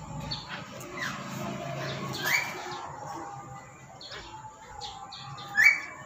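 Black-capped lory giving short calls, the two loudest about two seconds in and again near the end, each rising quickly and then holding briefly.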